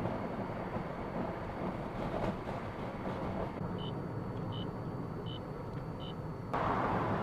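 Car driving down the road, with steady engine and road noise heard from inside the cabin. Past the middle come four short, high electronic beeps, evenly spaced, and near the end the road noise suddenly gets louder.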